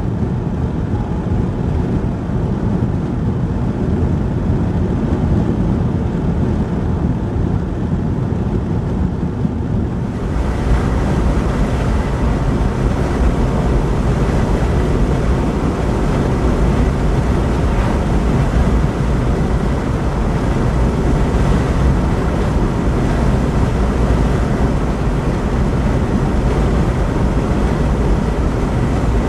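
Steady road and wind noise heard inside a moving car at highway speed. About ten seconds in it turns louder, with more hiss.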